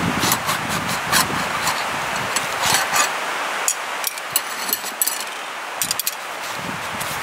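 Clicks, scrapes and light metal rattles of a folding black metal rod tool being drawn out of a backpack's side pocket, with nylon webbing and fabric brushing, over a steady hiss.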